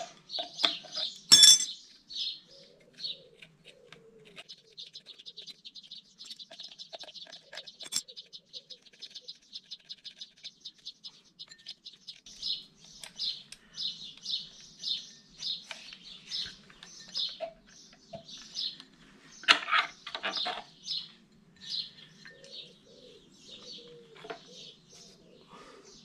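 Small birds chirping and twittering throughout, with a fast trill for several seconds starting about four seconds in. Sharp metallic clinks of hand tools on an e-bike's rear hub motor as it is taken apart, the loudest a little over a second in and about twenty seconds in.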